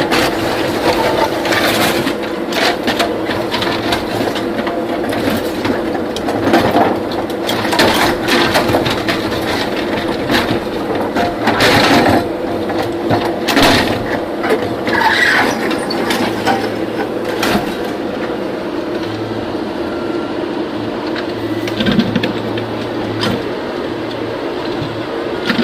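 JCB 3DX backhoe loader's diesel engine running steadily under irregular clanks and knocks from the working machine. The knocks thin out after about two-thirds of the way through, leaving the engine running on its own.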